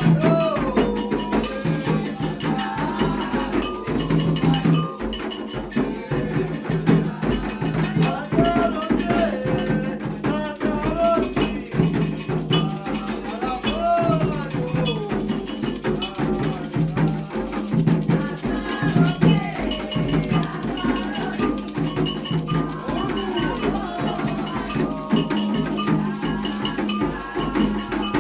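Afro-Brazilian ritual music: hand drums and a struck metal bell keeping a steady rhythm, with voices singing over them.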